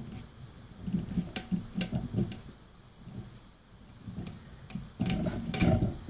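A ratchet wrench turns the gear puller's centre screw in short strokes, clicking, as the direct-drive hub motor's rotor is drawn off its stator against the magnets' pull. A run of clicks comes about a second in, and a louder rasping stretch comes near the end.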